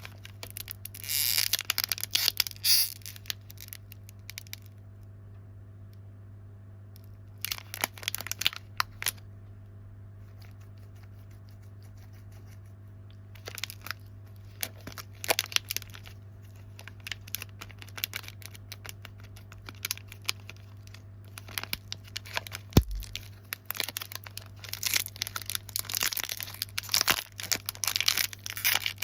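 Snack packaging being torn open and crinkled in several bursts, with handling clicks in between, over a steady low hum.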